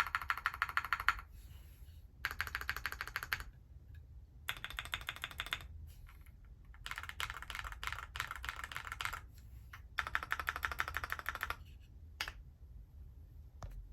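Typing on an Alice-layout mechanical keyboard: fast runs of key clicks lasting a second or two each, with short pauses between them, about five runs, then a single keystroke near the end.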